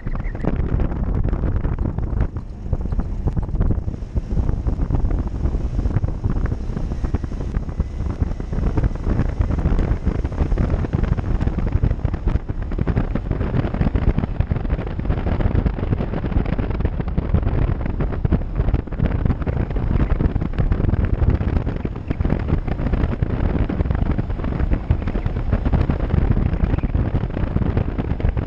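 Heavy wind buffeting the microphone over the low running noise of an off-road vehicle.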